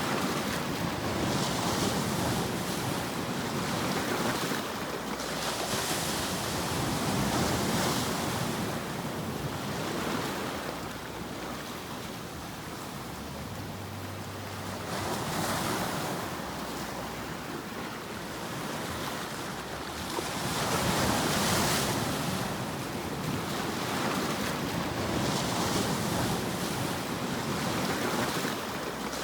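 Ocean surf: a broad rushing hiss that swells and ebbs every few seconds as waves wash in and draw back.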